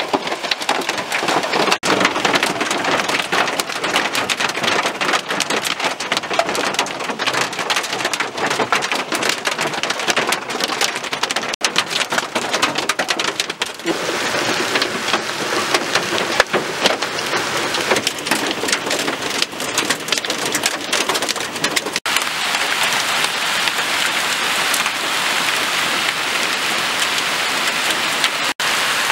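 A hailstorm: heavy rain and hail falling on grass, paths and paving, a dense steady hiss full of sharp little hits. It breaks off for an instant a few times.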